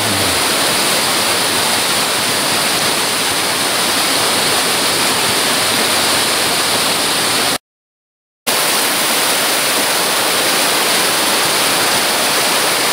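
A waterfall sliding down a broad rock slab: a steady, loud rush of water that cuts out completely for about a second midway.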